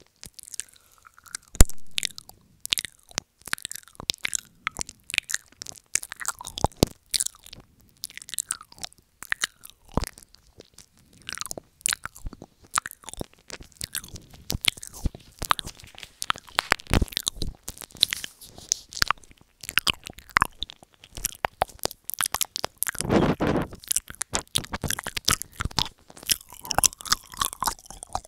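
Close-miked wet mouth sounds: rapid, irregular lip and tongue clicks and smacks, made with fingers held at the mouth, with one longer, louder wet sound about three quarters of the way through.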